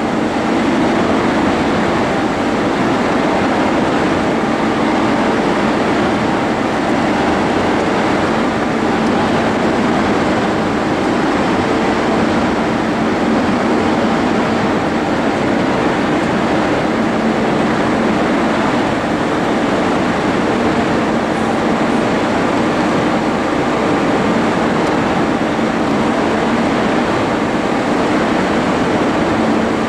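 Steady, loud machinery drone from a tunnel construction pit, an even rumble with a constant low hum running through it.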